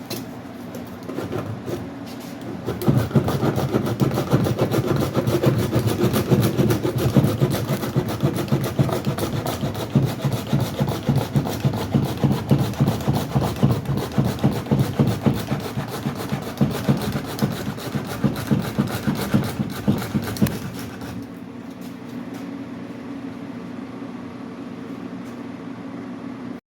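Power sander with 80-grit paper running on dried Bondo body filler, rubbing in rhythmic back-and-forth strokes about twice a second. About twenty seconds in the strokes stop and the sander's motor runs on with a steadier hum.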